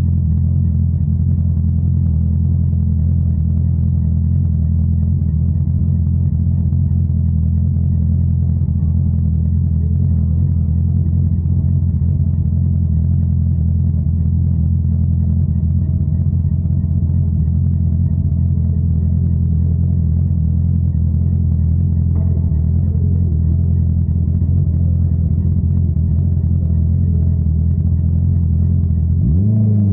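Honda CBR650R's inline-four engine running steadily through an Akrapovič exhaust, a constant low, even note. Near the end the pitch dips briefly and then climbs again.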